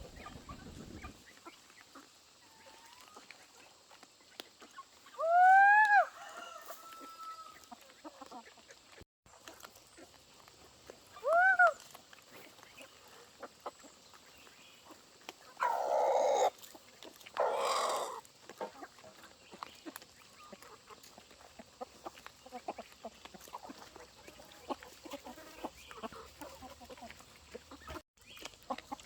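Farmyard chickens calling: two loud calls that rise and fall, about 6 s and 11 s in, then two harsher squawks around 16 and 18 s, with faint scattered clicking and rustling between them.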